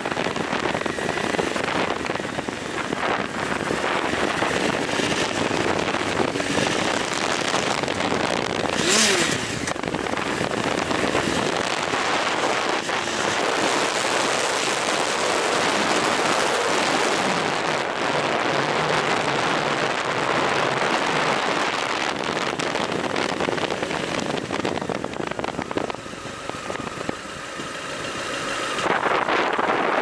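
Honda CBR929RR FireBlade sport bike's inline-four engine running hard while riding across wet sand, under a steady rush of wind noise. It eases off briefly a few seconds before the end, then picks up again.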